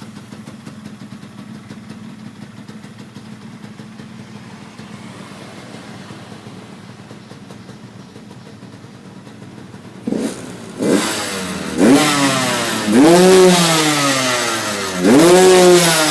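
Yamaha RX-King two-stroke single-cylinder engine idling steadily, then revved in five quick throttle blips from about ten seconds in, each one rising in pitch and dropping back, the later ones the loudest.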